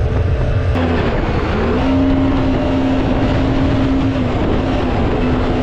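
Mini jet boat's 1053cc Yamaha four-stroke engine running at high revs, with water rushing under the hull. The engine pitch dips and climbs back about a second and a half in, then holds steady.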